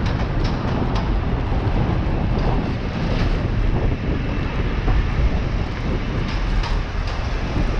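Steady street and riding noise from a moving bicycle-mounted camera: a continuous noisy rush of traffic with a low wind rumble on the microphone.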